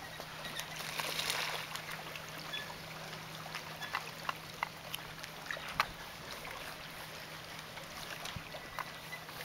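Small lake waves lapping and splashing at the shoreline, with irregular little splashes and a swell of water noise about a second in, over a faint steady low hum.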